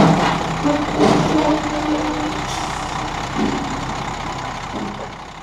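Motorhome engine running at low speed as the RV creeps forward on a railway flatcar, with a sharp click right at the start. The sound fades out near the end.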